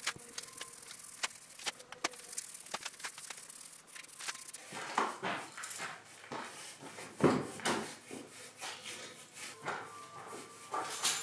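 A bristle paintbrush drawn over oak boards as finish is brushed on: soft scratchy rubbing strokes, louder around the middle, mixed with frequent small clicks and knocks.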